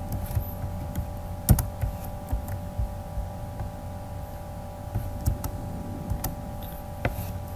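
A few irregular computer keyboard and mouse clicks while a line of code is copied and pasted, over a steady electrical hum.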